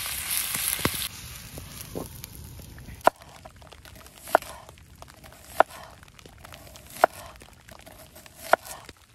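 Meat sizzling in a frying pan over a campfire for about the first second. Then a knife slices onions on a wooden cutting board: five sharp knocks of the blade hitting the board, about one every second and a half.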